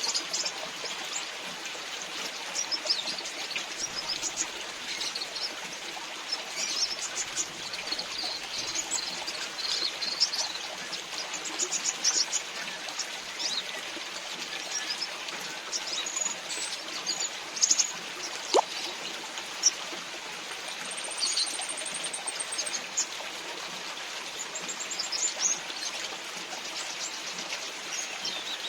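Steady rain falling and dripping, with frequent short high chirps from small birds, the brown-throated sunbirds in the aviary.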